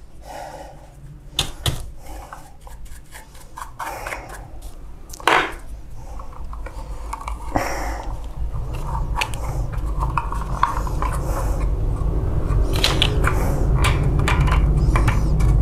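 Scattered clicks, knocks and scrapes of hard plastic copier parts being handled and fitted. A low hum rises steadily under them through the second half.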